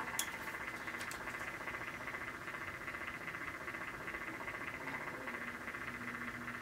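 Small electric cup turner motor running steadily as it spins a mug, with a fast, even pulse. There are two light clicks in the first second.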